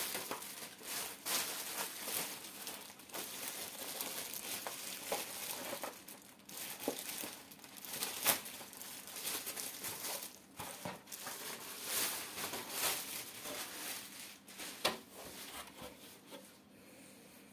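Clear plastic wrapping crinkling and crackling as it is pulled off an aquarium lid, in a busy run of crackles that thins out near the end.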